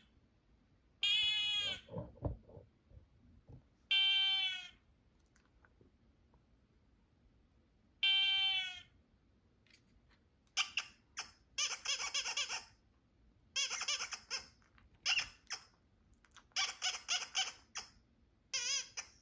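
Sound effects played from a video: three separate steady electronic beeps, each under a second long and a few seconds apart, then, from about halfway in, repeated bursts of high-pitched, wavering squeaking.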